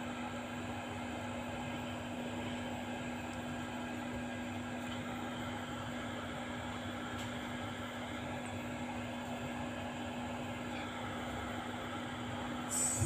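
Steady hiss and a constant low hum from a home-built amplifier and speaker cabinet idling with no music playing. Music starts to come in at the very end.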